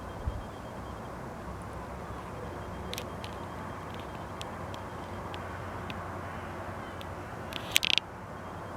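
Outdoor ambience: a steady low rumble, like distant traffic, with a few brief high sharp sounds. The loudest cluster of them comes near the end.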